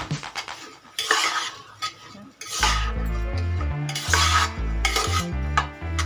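Metal spoon stirring and scraping basmati rice around a nonstick pressure cooker pan as it fries in ghee, in repeated strokes about once a second. Background music with a deep bass line comes in about two and a half seconds in.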